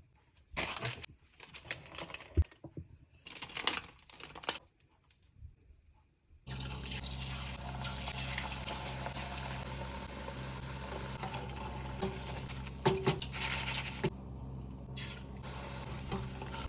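Nippattu rice crackers deep-frying in hot oil: short scattered clatters and rustles, then a steady sizzling hiss from about six seconds in, with a few clicks near the end.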